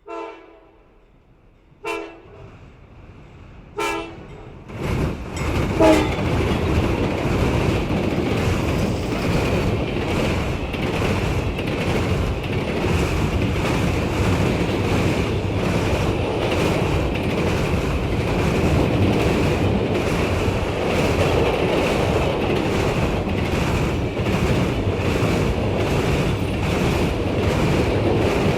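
Diesel locomotive horn sounding four short blasts about two seconds apart, each louder as the train nears. The train then passes close by with a loud steady rumble and the rhythmic clickety-clack of wheels over the rail joints.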